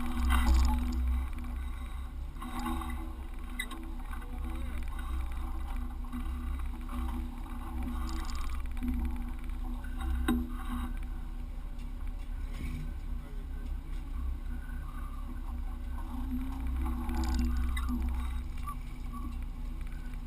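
Vehicle engine running steadily while driving along a rocky creek bed trail, with a low rumble and a few scattered knocks.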